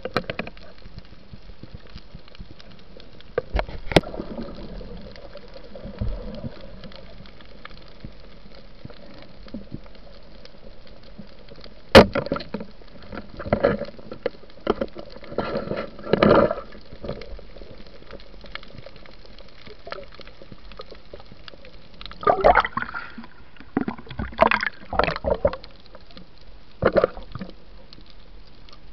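Underwater sound: a steady hiss with clusters of bubbling and gurgling water, and a few sharp knocks, the loudest about twelve seconds in.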